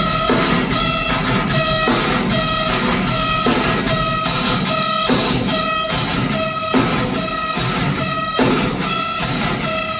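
Live metalcore band playing a heavy instrumental passage: distorted electric guitars over a drum kit, with a riff repeating in a steady rhythm.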